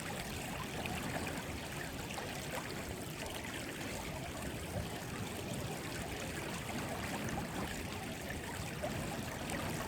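Small river flowing steadily, a constant rush of running water.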